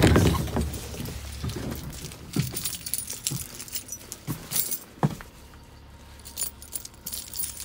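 A ring of keys jangling and clinking in a hand, in scattered bursts. A loud thump comes right at the start.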